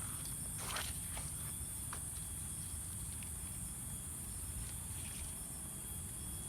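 Insects, likely crickets, keep up a steady high-pitched chorus. A few footsteps crunch in the first two seconds, over a low steady rumble.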